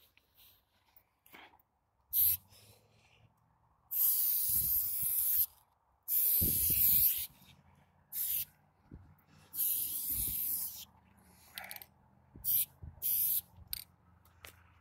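Aerosol spray paint can spraying in separate bursts of hiss, some short and some lasting a second or more, as lines are painted on a wall.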